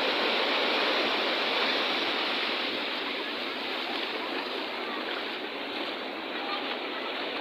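Ocean surf washing on a beach, a steady rush of water that eases a little after about three seconds.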